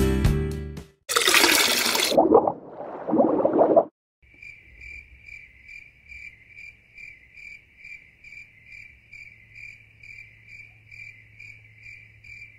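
Background music fades out, a brief rushing noise follows, then high-pitched insect chirping sets in about four seconds in, one chirp repeated about twice a second over a low steady hum.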